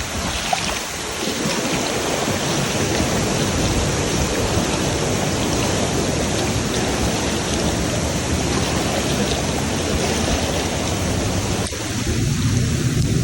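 Steady rush of a waterfall's falling water, with the noise changing abruptly near the end.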